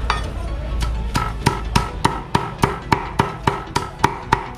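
Cleaver mincing meat on a chopping board: quick, even strokes, about three or four a second, starting about a second in, each with a short metallic ring.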